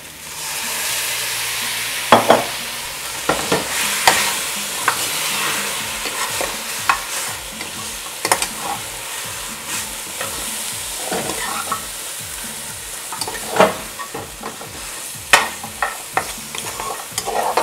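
Beef pieces sizzling in a hot metal pot as meat juice is poured in, the hiss starting up just after the start. A metal spoon then stirs and scrapes the meat against the pot, with a scrape or knock every second or two over the sizzle. This is the browning stage of Dominican carne guisada.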